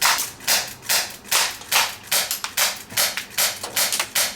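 Walther P99 CO2 blowback airsoft pistol fired quickly and steadily, about two and a half shots a second, each shot a sharp crack with the slide snapping back.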